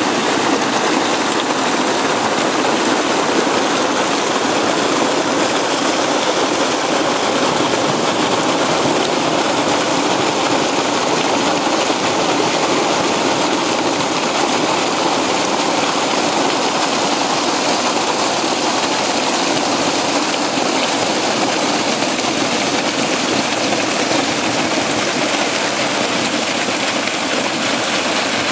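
Steady rushing of flowing water from a spring and its stream pouring over rocks.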